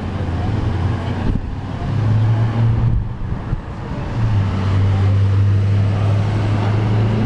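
City street traffic, led by a vehicle engine's low steady drone that eases briefly about three seconds in and then comes back louder.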